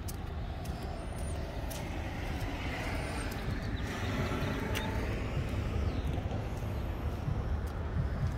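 Road traffic on a busy street: a steady low rumble, with a vehicle swelling past about four seconds in.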